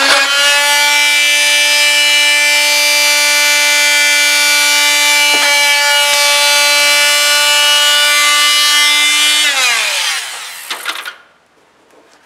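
Oscillating multi-tool (oscillating saw) running at a steady high whine, then switched off about nine and a half seconds in, its pitch falling as it winds down to a stop.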